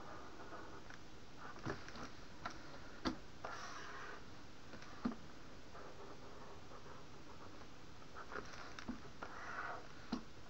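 Scattered light clicks of a computer mouse at uneven intervals, with a couple of short rustling sounds, over a low steady hiss.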